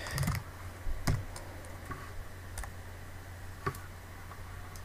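Computer keyboard being typed on: a handful of separate keystrokes, spaced out, over a low steady hum.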